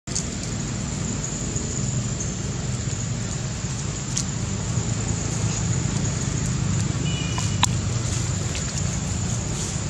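Steady outdoor background noise, a low rumble under a hiss, with a few faint clicks and a brief high chirp about seven seconds in.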